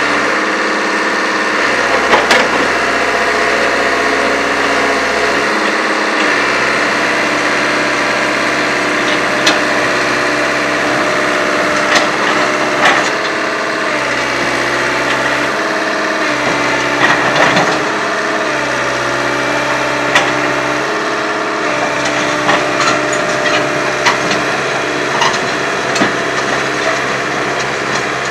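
Kobelco Yutani crawler excavator's diesel engine running steadily while the machine crawls off a flatbed truck down the loading ramps. Its steel tracks give sharp clanks and creaks at irregular moments, more often near the end.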